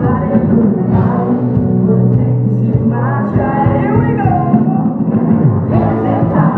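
Live pop-rock band performance: a sung lead vocal over a full band with drums, loud and muffled in the treble.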